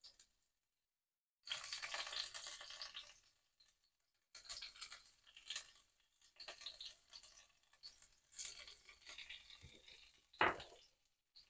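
Ginger, chilli and spring onion sizzling in hot oil in a wok, a faint hiss that comes in spells broken by short silent gaps. A short knock sounds near the end.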